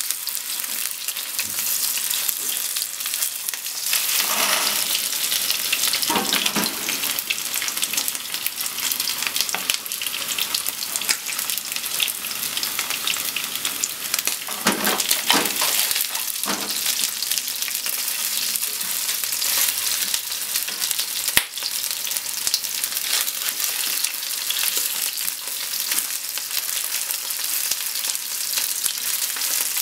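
Marinated chicken pieces coated in potato starch sizzling in oil in a nonstick frying pan, turned now and then with wooden cooking chopsticks. The frying hiss is steady and swells twice, about four seconds in and again around fifteen seconds, with a single sharp click a little past twenty seconds.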